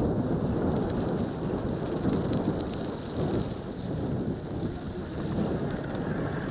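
Wind buffeting the helmet-mounted camera's microphone as a mountain bike rolls down a sandy dirt road. The tyres rumble over sand and gravel, making a steady, fluctuating low rumble.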